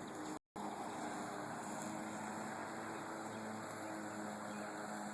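Black & Decker battery-powered push lawn mower running steadily, its electric motor and spinning blade giving an even hum with a low steady tone. The sound drops out for an instant about half a second in.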